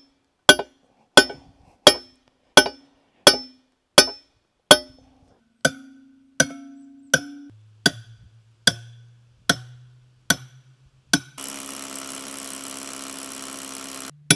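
Background music: a slow, even percussive beat of sharp hits, each followed by a bass note that steps lower about halfway through. Near the end the beat gives way to about three seconds of steady buzzing noise, then comes back.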